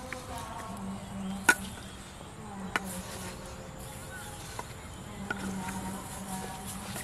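An insect buzzing in on-and-off spells, with two sharp clicks, the first about a second and a half in and the second just under three seconds in.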